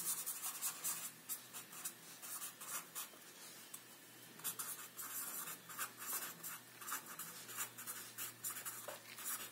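Pen scratching across paper as words are written by hand: quick, irregular strokes with a short pause partway through, over a faint steady low hum.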